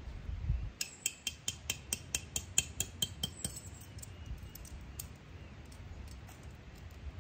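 A metal tent stake being hammered into the ground: about a dozen quick, evenly spaced ringing strikes, about four a second, stopping after some three seconds.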